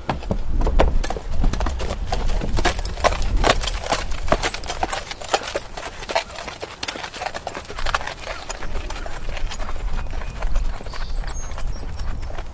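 A horse walking, its hooves clip-clopping in an uneven run of sharp strikes, over a steady low rumble.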